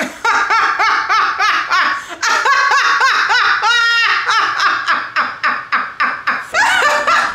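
A woman laughing loudly and hard, a long run of rapid 'ha-ha' bursts several to the second, with a brief high-pitched squeal about four seconds in.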